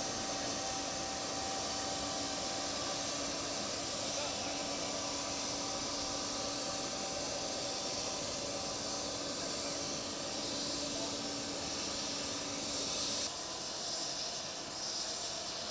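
Steady whine and hiss of a parked jet aircraft's turbine running on the apron. The whine drops away about thirteen seconds in, leaving a quieter hiss.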